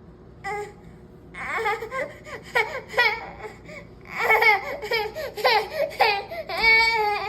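A baby laughing in a run of short, high-pitched bursts, ending in a longer held squeal near the end.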